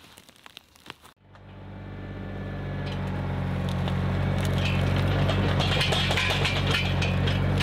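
A few light knocks and footsteps as timber is handled, then from about a second in a compact tractor's engine running steadily, growing louder over the next few seconds and then holding even.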